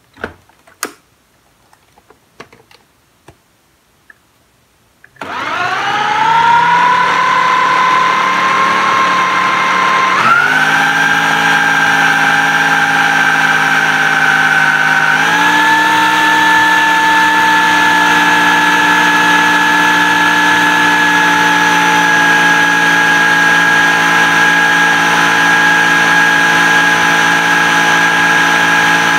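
A few knocks, then about five seconds in a countertop blender's motor starts with a rising whine and runs steadily, grinding chopped herbs and vegetables into a thick paste. Its pitch shifts twice, about ten and fifteen seconds in.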